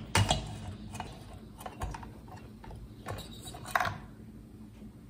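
About half a dozen metal clinks and knocks as the cylinder of a Husqvarna 372 XP two-stroke chainsaw engine is handled, worked loose and lifted off its piston, the sharpest just after the start and near four seconds in, over a faint steady hum.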